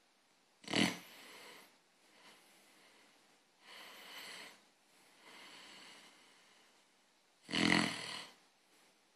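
A sleeper snoring: two loud snores about a second in and near the end, with softer breaths between them.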